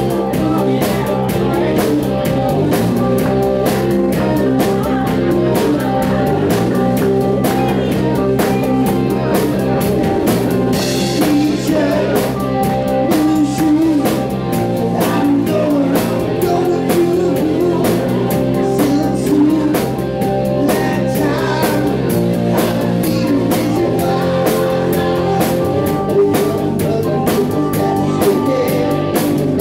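Live band playing a song: drum kit keeping a steady beat under guitar and keyboard, with a singer's vocal.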